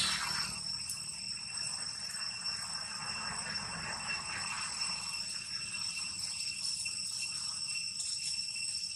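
A steady, high-pitched drone of insects, unbroken throughout.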